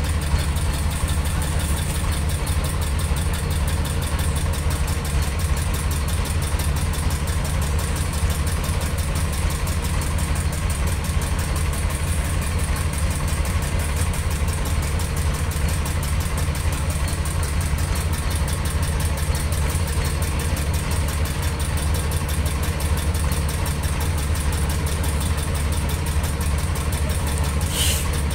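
A boat engine idling steadily: a deep, even rumble with a fast regular beat. There is a brief high-pitched clatter near the end.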